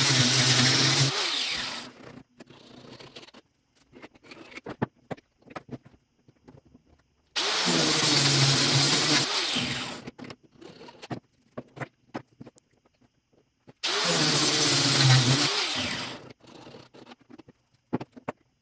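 Angle grinder cutting 45-degree grooves into the edges of polypropylene sheet. It runs in three spells of two to three seconds each, about seven seconds apart, and the motor winds down after each one. Light clicks and knocks from handling the plastic come in between.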